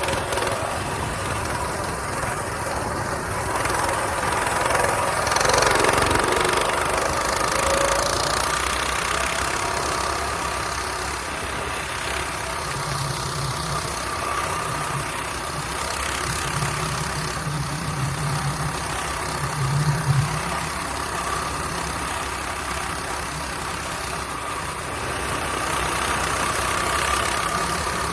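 A mini bike's small engine running steadily while it is ridden, its pitch dipping and rising briefly about five seconds in.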